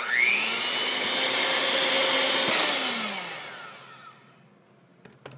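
Electric hand mixer with wire whisk beaters beating egg yolks in a glass bowl. The motor whines up to speed at the start, runs steadily for close to three seconds, then is switched off and winds down with a falling pitch.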